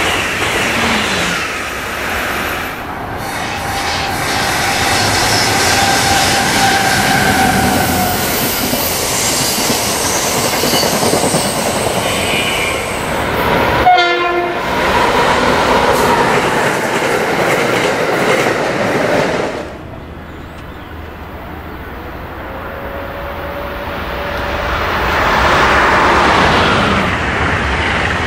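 Amtrak electric passenger trains, Acela Express trainsets and an ACS-64-hauled train, passing at speed under catenary: a steady rumble and rush of wheels on rail with clickety-clack, and a train horn sounding. The sound changes abruptly about halfway through and again about two-thirds through. It drops to a quieter rumble there and builds again toward the end as the next train approaches.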